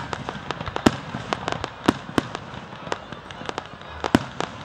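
Aerial fireworks display: sharp bangs and pops from bursting shells in quick, irregular succession, with a few louder booms standing out.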